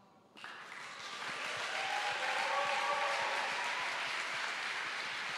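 Audience applauding, starting abruptly about half a second in and swelling to a steady level over the next couple of seconds.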